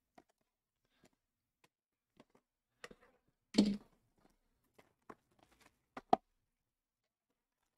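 Sealed cardboard trading-card hobby boxes being shuffled by hand on a table: scattered light taps and knocks, a louder thump about three and a half seconds in, and two sharp knocks close together about six seconds in.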